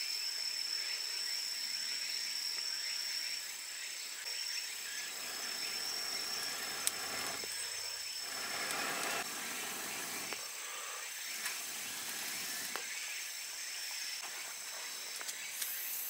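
Insects trilling steadily, a thin high tone that breaks off and resumes, with some light rustling and a couple of sharp clicks.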